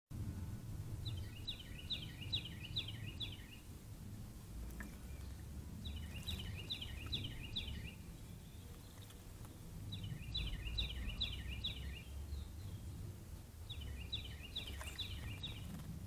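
A songbird singing the same short song of quick, evenly repeated notes four times, roughly every four seconds, over a steady low background rumble.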